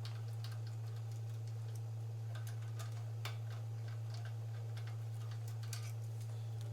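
A few irregular small metal clicks and taps as the new carburetor on a Briggs & Stratton engine is tightened down by hand, over a steady low hum.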